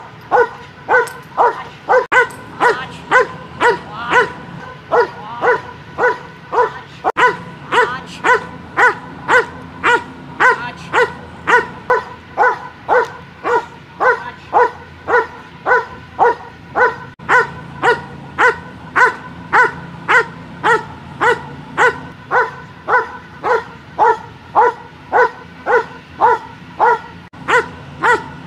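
German Shepherd barking in a steady, unbroken rhythm, a little under two barks a second. It is a protection-trained dog barking at the decoy while it holds its position at the handler's leg.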